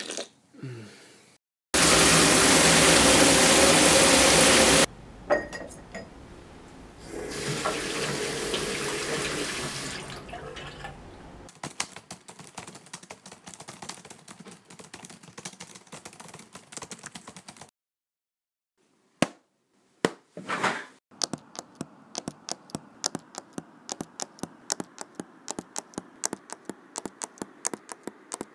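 Water running hard from a tap for about three seconds, then a quieter rush a few seconds later. After that comes a long stretch of quick clicks from typing on a laptop keyboard.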